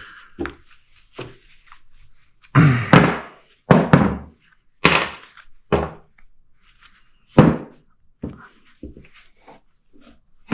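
Irregular heavy metal knocks and clanks, about six loud ones at uneven spacing with a faint high ring after several, from work on an ATV's rear suspension knuckle.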